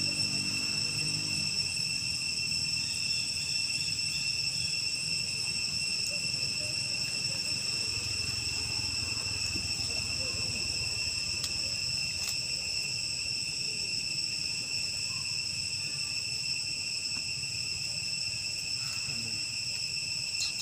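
Steady, high-pitched drone of an insect chorus, crickets or cicadas, running unbroken over a faint low background hiss.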